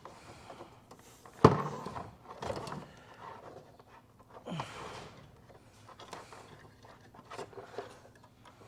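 Objects being handled on a workbench: one sharp knock about a second and a half in, then softer scuffs and a few small clicks near the end.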